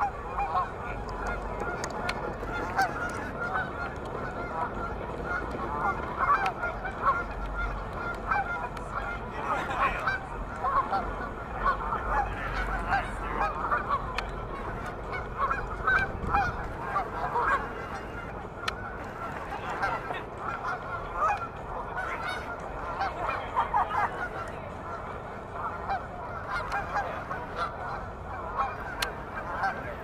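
A flock of geese honking continuously, many short calls overlapping one another.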